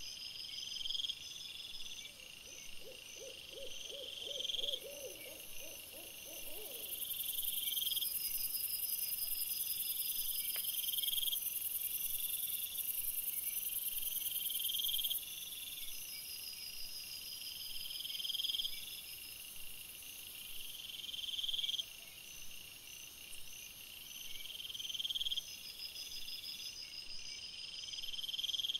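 Night-time insect chorus of high, steady chirping that swells and drops every few seconds, with a short run of pulsed hoot-like calls a few seconds in and a high hiss through the middle.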